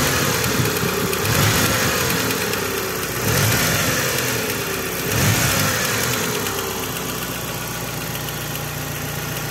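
Mitsubishi 4G63 turbo engine running, blipped three times and falling back to idle, with a knock that the owner traces to a failed hydraulic timing-belt tensioner, heard only when the engine is hot.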